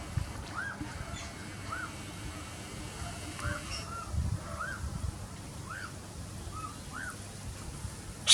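Pied butcherbird calling: a run of short, clear whistled notes, each rising and falling, about one a second. A loud, harsh bird screech cuts in at the very end.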